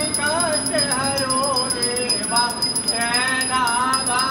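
A devotional aarti song with a wavering sung melody over a small brass hand bell rung rapidly and without pause, as is done while the aarti lamp is waved.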